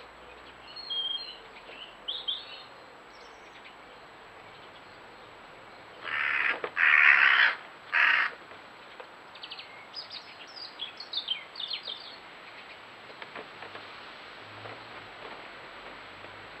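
A crow caws three harsh times in quick succession, with small birds chirping before and after.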